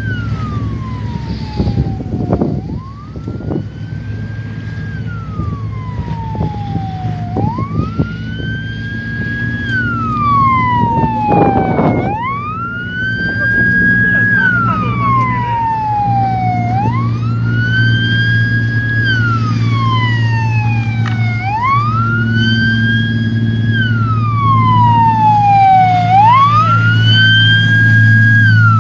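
Coast guard patrol boat's siren wailing over and over, each cycle a quick rise, a short hold at the top, then a long slow fall, about every five seconds. Under it runs the steady drone of a boat engine, with a couple of sharp knocks early on and about twelve seconds in.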